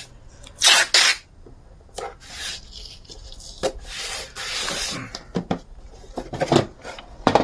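Masking tape being pulled off the roll in several short, noisy rips, with a longer pull about four seconds in. Light clicks and handling knocks come near the end.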